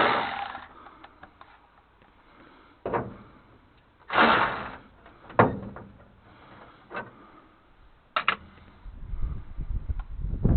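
Separate metal clunks and knocks from tools and parts being handled on an old truck, about five of them spread a second or so apart. Busier clattering builds near the end.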